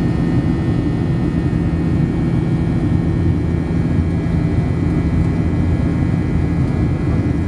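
Steady, loud cabin noise of a Boeing 737-700 climbing through cloud: the rumble of its CFM56-7B turbofan engines and airflow, with a few faint steady whining tones above it.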